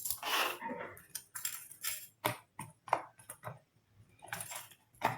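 Silicone pop-it coin purse having its bubbles pressed: a run of about a dozen short, dull pops at an uneven pace. The pops are so weak that there is hardly any pop sound at all, a sign of the purse's poor pop-it quality.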